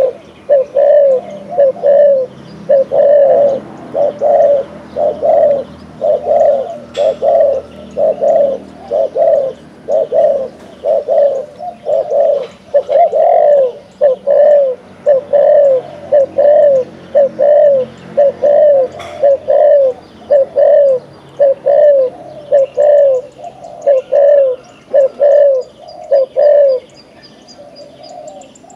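Spotted dove giving its bowing courtship coo: a long, regular run of short coos, about one and a half a second, stopping near the end. Faint chirps of small birds are heard in the background.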